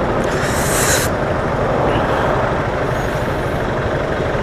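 Steady motorcycle riding noise in traffic, picked up by a helmet-mounted external microphone: engine, road and wind noise. A short sharp hiss comes about half a second in.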